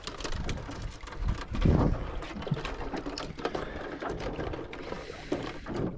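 Irregular clicks and knocks from fishing gear being handled on a small boat, with one louder thump about a second and a half in.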